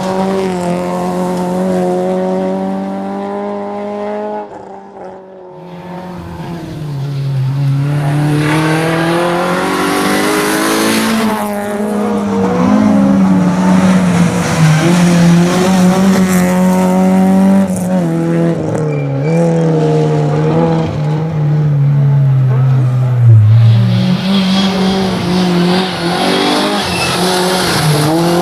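Opel Corsa GSi rally car's four-cylinder engine driven hard, its note repeatedly climbing and falling as it works up through the gears and lifts off. It eases off briefly about five seconds in.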